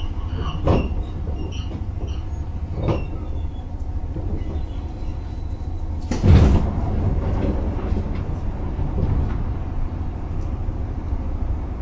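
205 series electric train running along the track with a steady low rumble. Wheel knocks come through a few times, the loudest about six seconds in.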